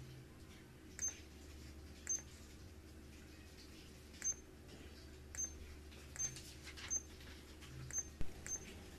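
Handheld controller of an LED facial mask giving short, high beeps with a small click as its buttons are pressed, eight times at uneven intervals, each press switching the mask's light colour or mode. A low, steady hum runs underneath.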